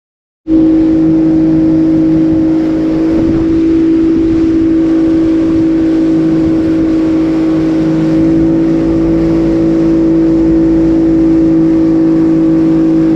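Boat's outboard motor running at a steady cruising speed, an even drone that starts suddenly about half a second in.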